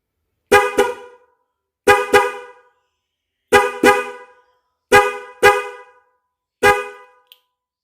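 Newly fitted Hella Black Twin Tone car horn being test-sounded in short double toots: four quick pairs, then a single toot. The twin horns sound a high and a low note together, and each toot is brief and dies away within about half a second.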